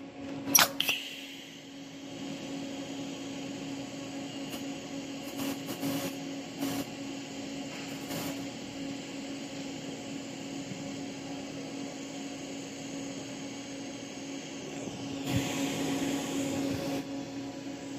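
TIG (GTAW) welding arc on a stainless steel pipe joint, laying a tack weld with hand-fed filler rod. It is a steady, even hiss over a constant hum, with a sharp click just under a second in.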